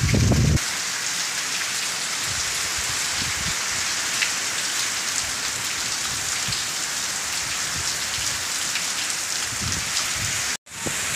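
Heavy rain falling steadily, an even hiss of rain on wet ground and standing water. It opens with a brief low rumble of wind on the microphone that stops about half a second in, and the sound drops out for an instant near the end.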